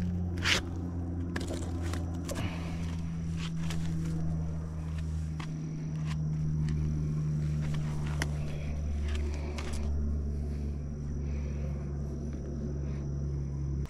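A steady low engine drone whose pitch sinks slowly, with scattered sharp clicks and rustles over it.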